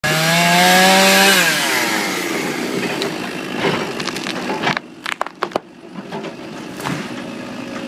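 Chainsaw at full throttle, its engine note falling away about a second and a half in and settling to a lower running note. Several sharp cracks of breaking wood between about four and six seconds in, as the tree gives way.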